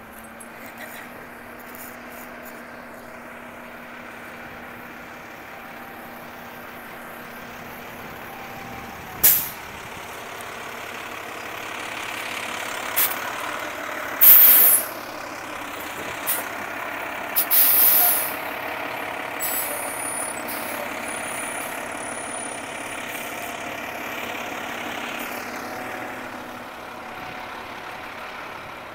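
Garbage truck's engine running as it creeps past, growing louder as it draws close, with several sharp air-brake hisses in the middle stretch, the loudest at about 9 and 14 seconds in.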